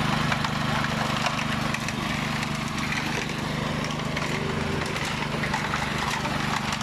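A small engine runs steadily with an even low hum, over a scatter of light clicking and scraping from hand work.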